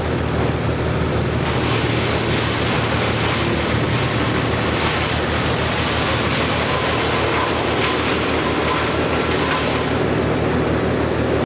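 An engine running steadily at a constant speed, with a rough, noisy rush over it.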